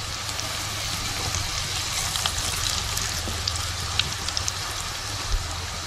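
Crushed garlic and bay leaves sizzling in hot oil for a tempering, a steady hiss with scattered small pops and crackles.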